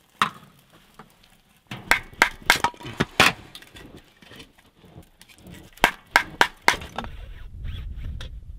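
Hatchet splitting a piece of birch into kindling: a run of sharp cracks and knocks about two to three seconds in, and another cluster of four near six seconds. Near the end a low, steady rumble takes over.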